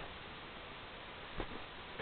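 Low steady hiss with one soft knock about one and a half seconds in.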